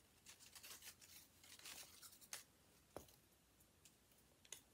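Faint rustling and crinkling of a small folded paper slip being unfolded by hand, for the first two seconds or so, then a few soft clicks.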